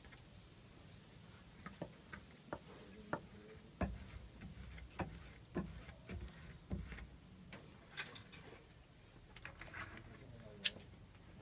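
Faint, irregular light taps and knocks of a cigar being rolled by hand on a wooden tabletop, with a sharper click a little before the end.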